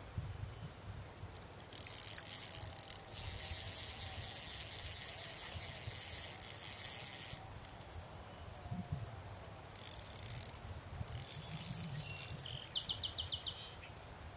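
Fly reel's clicker drag ratcheting in a fast, continuous buzz from about two seconds in to about seven seconds, then in shorter bursts of clicking near the end, as a hooked trout is played on the bent rod.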